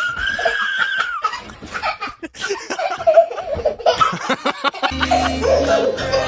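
People laughing over background music; the music's bass line drops out and comes back about five seconds in.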